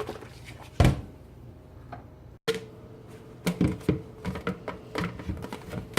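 Irregular light clicks and taps of small objects being handled, with one louder knock about a second in, over a faint steady hum.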